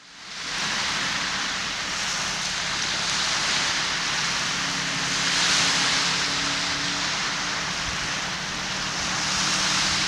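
Small waves washing onto a sand-and-stone beach: a steady hiss of surf that fades in over the first second and swells slightly about halfway through.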